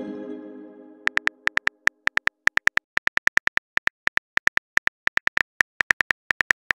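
Simulated phone keyboard typing clicks from a texting-story animation: short, crisp ticks at about four to five a second as a message is typed out. At the start, the tail of a message-sent chime rings out and fades over the first two seconds.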